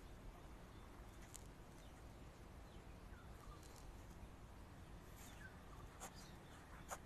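Near silence: faint background ambience with a few faint, short chirps and two soft clicks near the end.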